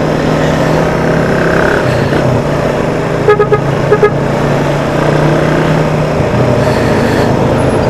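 Motorcycle engine running steadily in traffic, with heavy road noise on a helmet-mounted action-camera microphone. A vehicle horn gives two short toots about three and four seconds in.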